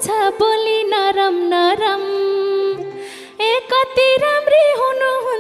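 Nepali dohori folk band playing an instrumental passage: a pitched melody line with bends and vibrato over harmonium and regular madal hand-drum strokes. The music thins out briefly about three seconds in, then comes back in full.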